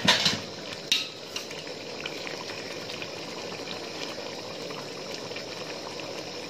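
Chicken curry simmering in a metal pot while it is stirred with a slotted spatula: the spatula knocks against the pot at the start and again about a second in, then a steady bubbling simmer with light stirring.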